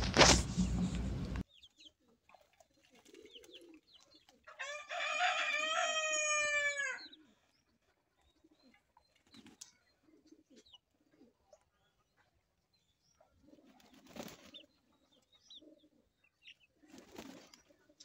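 A rooster crowing once: a single crow lasting about two and a half seconds, a few seconds in. Only faint, scattered short sounds follow.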